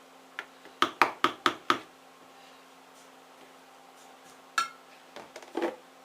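Soap mold filled with thick cold process soap batter being rapped on the counter: five quick knocks, about four a second, to settle the batter and even out the top. Later a single ringing clink and a few softer knocks.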